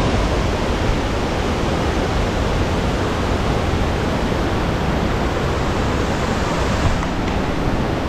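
Waterfall rushing steadily: a loud, even wash of falling-water noise with no breaks.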